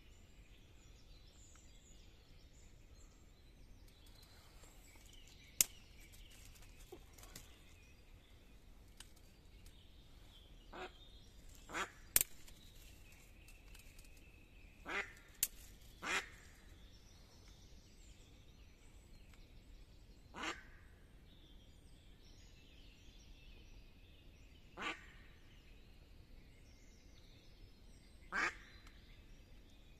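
Live decoy hen duck quacking in single, spaced-out quacks, about seven of them, the way a spring decoy hen calls to draw in drakes. A few sharp clicks come in between.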